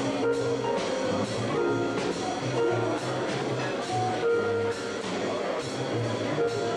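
A live band playing, led in the low end by an upright double bass plucked pizzicato, its bass line moving note by note, with drum and cymbal hits on top.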